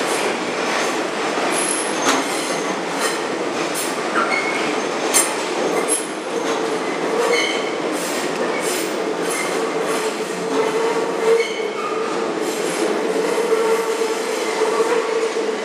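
New York City 6 subway train running through the curved City Hall loop station, its wheels squealing against the rails on the tight curve, with steady running noise, a constant mid-pitched hum and scattered clicks and clacks.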